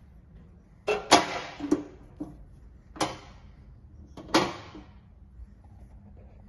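Sharp metallic clunks from the stainless-steel housing of a Dadaux SX 220 bandsaw as its wheel-cover door is shut: a quick cluster about a second in, then single clunks at about three and four and a half seconds, each ringing out briefly.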